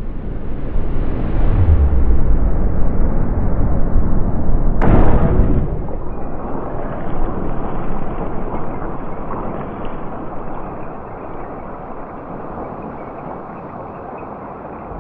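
Air cannon firing a baseball at supersonic speed: a low rumble builds, a single sharp crack comes about five seconds in, and a rumble fades away slowly after it.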